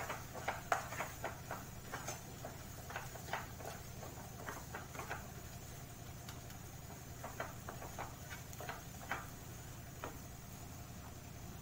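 Wooden spatula scraping and knocking against a nonstick pan as a thick, crumbly ground-peanut mixture is stirred, in quick irregular strokes that die away about ten seconds in. A faint steady low hum runs underneath.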